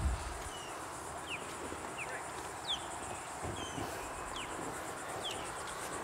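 Outdoor ambience: short, high chirps falling in pitch, repeating irregularly about once or twice a second, over a steady high insect trill and a faint hiss.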